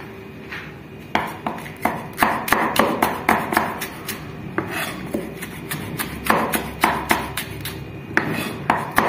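Chef's knife slicing a green bell pepper into strips, the blade knocking on the cutting board in runs of quick chops, about two to three a second, with a short pause about halfway through.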